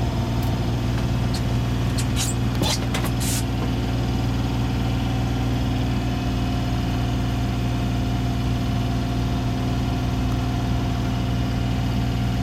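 Boat engine running steadily with an even, low hum while the sailboat motors along a canal. A few brief clicks come between about two and three and a half seconds in.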